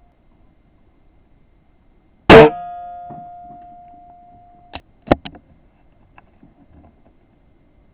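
HW97K spring-piston air rifle firing once about two seconds in: a sharp crack, then a ringing spring twang that fades over about two seconds. A few short knocks follow about a second later.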